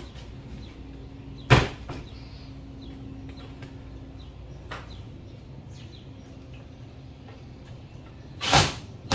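Wooden chicken-coop panels knocking and bumping as they are handled and fitted together: a sharp knock about a second and a half in, then a couple of louder thumps near the end, with a faint low hum in between.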